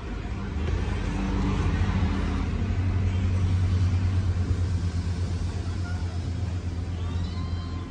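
Steady low rumble of an engine running, growing a little louder about a second in and holding steady.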